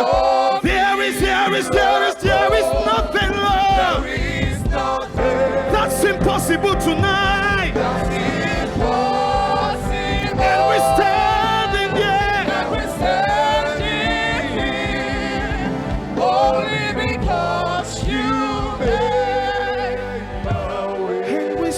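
Gospel worship song performed live: singing over instrumental accompaniment with a steady beat.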